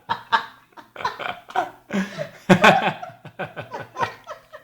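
Laughter in a run of short pitched pulses, several a second, many falling in pitch, coming in a few bursts.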